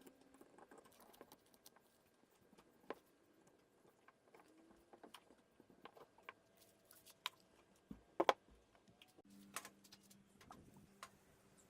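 Faint, scattered light taps and clicks, the sharpest about 3, 7 and 8 seconds in, with a few brief faint squeaks between them.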